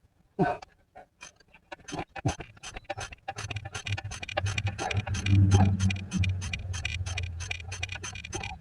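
Ratchet wrench clicking rapidly as a bolt on the harmonic balancer is worked loose. A low steady hum joins about three seconds in.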